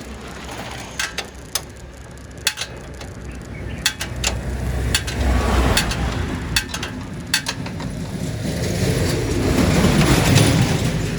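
Motor vehicle running, its low rumble swelling twice, with irregular sharp metallic clicks and knocks over it.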